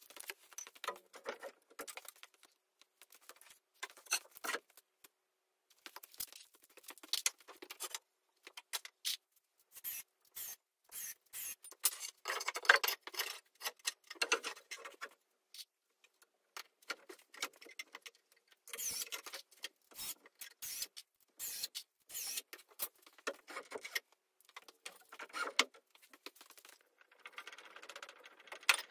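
Scattered light scrapes, taps and shuffles of a person handling and fitting a wooden framing stud, coming in irregular short spells.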